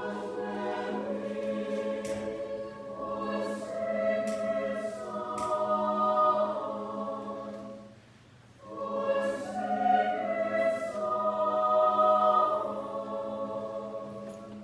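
A choir singing a Christmas carol in a church, in two long phrases with a short break between them a little past halfway.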